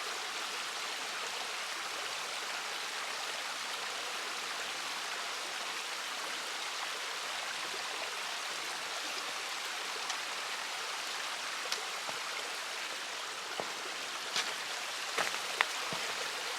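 Steady hiss of water, rain or running stream water, with a few sharp ticks in the last few seconds.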